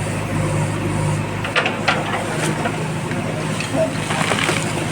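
JCB backhoe loader's diesel engine running steadily under work, with a few sharp knocks about one and a half to two seconds in.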